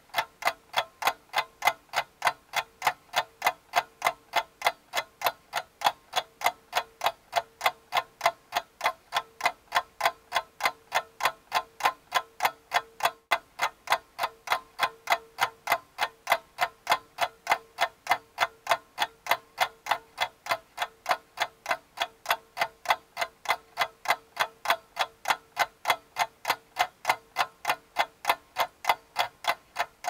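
A clock ticking at a fast, even rate, each tick a sharp click.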